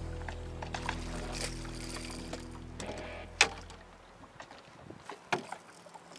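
A boat motor runs with a steady low hum, then winds down and stops about three to four seconds in. A few sharp knocks sound against the boat, the loudest about three and a half seconds in and another near five seconds.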